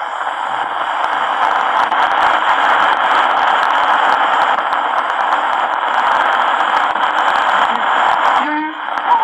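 Loud rushing noise on an old film soundtrack, with scattered crackles and clicks, slowly building. It drops out near the end, where a wailing voice begins.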